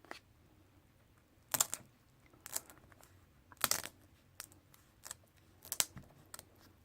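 Hands handling adhesive Velcro strips on a tablet: a string of irregular clicks and short crinkling rustles, about eight in all.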